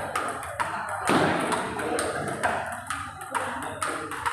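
Table tennis rally: the ball clicking sharply off the bats and the table in turn, several hits at an uneven pace.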